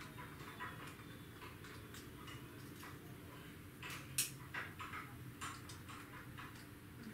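Light, irregular clicks and taps of small hard parts being handled, with one sharper click about four seconds in, over a faint steady hum.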